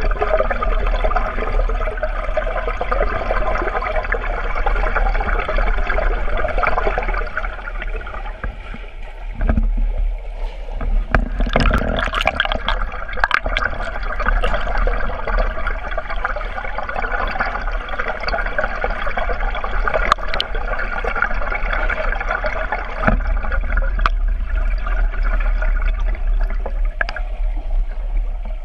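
Water and bubble noise picked up by a submerged camera in a swimming pool: a steady muffled wash with a constant low hum. There is a burst of sharp clicks and splashes near the middle.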